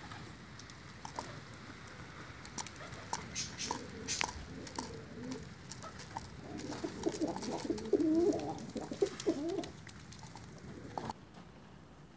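Domestic pigeons cooing, the calls thickest and loudest from about halfway through, with scattered sharp clicks and taps in the first few seconds.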